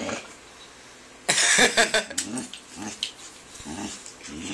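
A dog growling and grumbling while it is being petted: a louder, harsh outburst about a second in, then several short grumbles.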